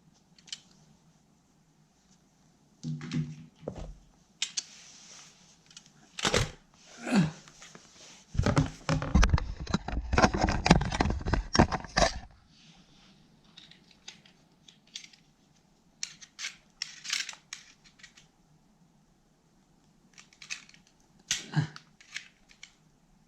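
Plastic packaging being handled, cut and torn open: scattered clicks and crinkles, with a dense, loud stretch of crinkling and scraping from about eight to twelve seconds in.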